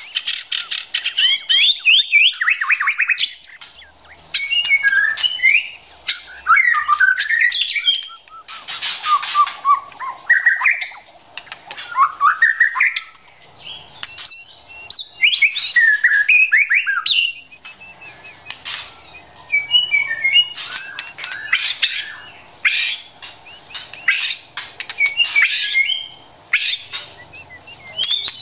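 White-rumped shama calling in quick phrases of whistled, chattering notes mixed with harsh rasping bursts, one phrase after another with short gaps. These are the calls of a female, of the kind played to rouse a male into singing.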